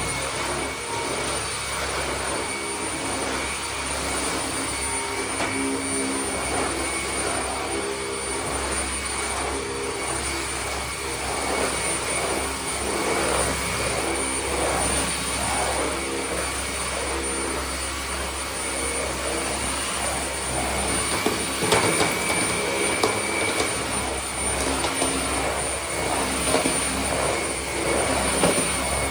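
Steady whirring of a motor with a constant high whine, joined by a few light clicks and knocks in the second half.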